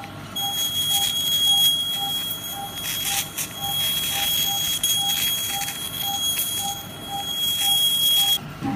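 Electrosurgical unit's steady high activation tone while a monopolar cautery pencil is applied to the skull. The tone cuts off near the end. Under it, an operating-theatre monitor gives a short regular beep about twice a second.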